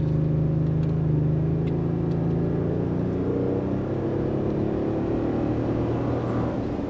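Twin-turbo V6 of a 2022 Toyota Tundra running through a Magnaflow Overland cat-back exhaust, a steady low rumble.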